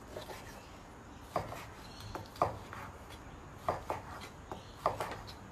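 A knife slicing grilled lamb on a wooden chopping board, the blade knocking sharply on the board about once a second.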